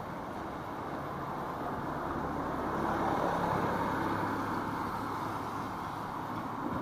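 A car driving past on a wet road, its tyres hissing, loudest about three seconds in, over steady street traffic noise.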